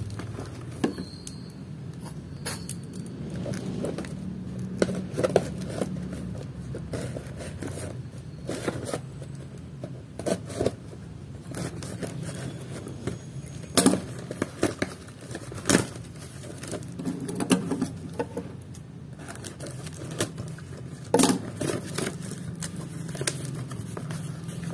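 Scissors snipping and scraping through packing tape and cardboard on a box, with irregular clicks and a few sharp snaps as the box is handled and its cardboard flaps are pulled open near the end.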